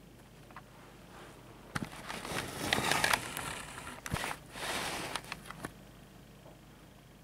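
Close rustling and scraping with a few sharp clicks, in two stretches from about two seconds in to nearly six, the first louder: a kitten shifting and rolling over on a felt-covered carpet surface.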